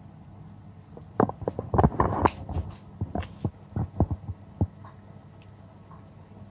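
Soft thumps and knocks as tomato slices are laid into a nonstick frying pan and the pan and plate are handled. They come in a run starting about a second in and ending near the five-second mark, over a steady low hum.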